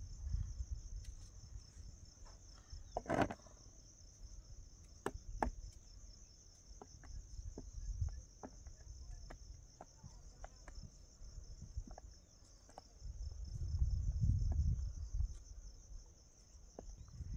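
Insects chirring steadily in a continuous high-pitched drone, with scattered light clicks and knocks, a sharper knock about three seconds in, and a low rumble around fourteen seconds in.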